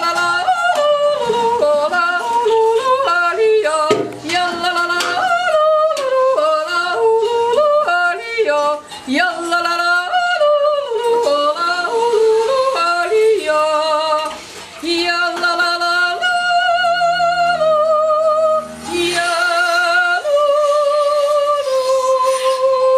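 A woman yodeling solo without accompaniment, in Swiss style. Her voice flips quickly back and forth between low chest notes and high head notes. Later the notes are held longer with a wavering vibrato, and she ends on a long sustained note.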